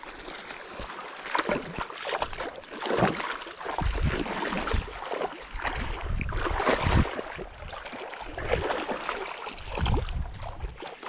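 Water splashing and sloshing in irregular bursts with low thumps, as a freshly hooked fish thrashes at the surface.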